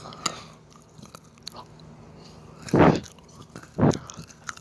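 Close-up biting and chewing of a dark chocolate bar with orange peel, with small mouth clicks and two loud crunches about three and four seconds in.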